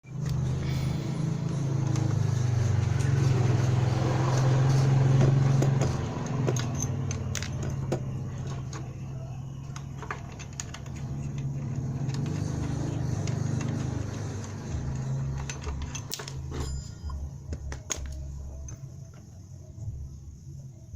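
Small brush cutter engine running, with a steady low hum that is loudest for the first few seconds and then drops and wavers. Metallic clicks and rattles sound over it.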